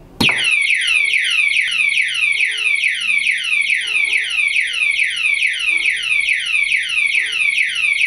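Security alarm padlock's built-in siren going off, set off by a hand touching the lock: it starts suddenly and loud, a rapid run of falling electronic sweeps, about three a second, with a steady high whistle over them.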